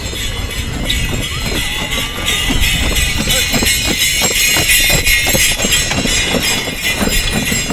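Horse-drawn sleigh going by at a trot: sleigh bells jingling, loudest about halfway through as it passes, over the dull thuds of hooves on packed snow.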